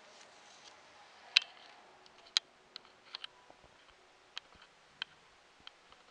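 A run of irregular light clicks and taps, two sharper ones in the first half, over a faint background hush.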